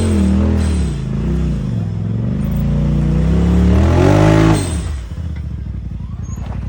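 Side-by-side UTV engine revving hard, its pitch rising and falling several times as it works up a muddy hill, then dropping to a low, steady idle about four and a half seconds in.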